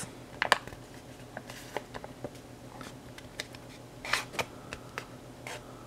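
Sheet of printer paper being folded and creased by hand: crinkling rustles and small sharp clicks, with louder rustles about half a second in and again around four seconds.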